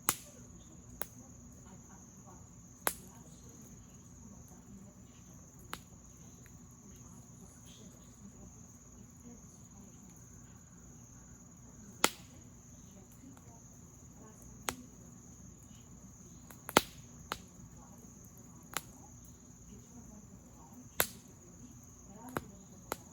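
Campfire crackling, with about a dozen sharp pops at irregular intervals, over a steady high insect trill.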